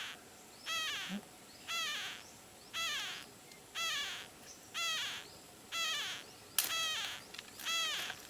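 Parrot chick in the nest giving raspy begging calls, about one a second, each call falling in pitch. There is a single sharp click about two-thirds of the way through.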